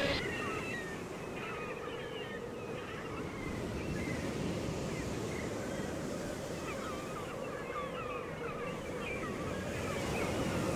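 Surf and wind on a beach with gulls calling over and over. A faint steady low tone runs underneath.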